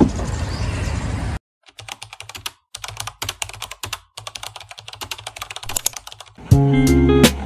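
Outdoor background noise that cuts off about a second and a half in, then a rapid computer-keyboard typing sound effect for about five seconds, with short pauses. Music with plucked notes starts near the end.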